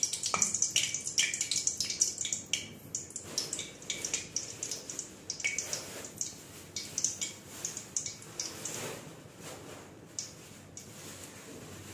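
Mustard oil heating in a kadai over a high gas flame, crackling and spitting with quick small pops that grow sparser toward the end.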